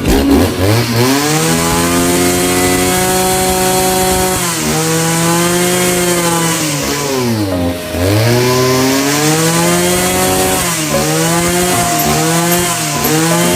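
Husqvarna 541RS brushcutter's two-stroke engine revving up to high speed and holding there. It eases off briefly, drops almost to idle about eight seconds in, revs back up, and gives several quick throttle blips near the end.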